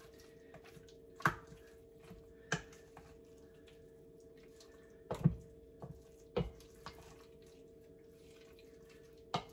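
Wooden spoon stirring thick yogurt-and-spice marinade through chicken pieces in a stainless steel mixing bowl: wet squishing with a few sharp knocks of the spoon against the bowl. A faint steady hum sits underneath.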